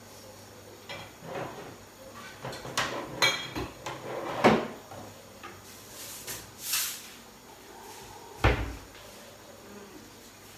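Kitchen handling sounds: a run of knocks and clatters, sharpest about four and a half seconds in, a short hiss near seven seconds, and a heavy thump about eight and a half seconds in, the kind made by cupboard doors and kitchenware being moved.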